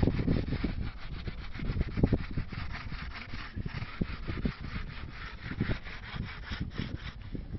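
A small hand-held pad rubbed rapidly back and forth over a rusty, shiny metal bar, scrubbing off rust loosened by a soak of Coca-Cola.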